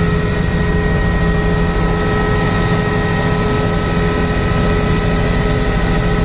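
Helicopter running steadily: a constant loud drone with a fast low pulsing and several steady whining tones, unchanging throughout.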